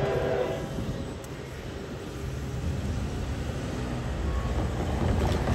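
Train running by with a steady low rumble. A pitched tone fades out in the first half second, and the rumble grows louder toward the end.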